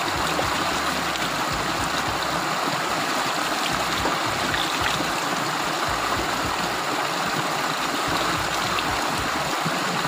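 Small waterfall spilling over a low rock ledge into a shallow pool: a steady, unbroken rush of flowing water.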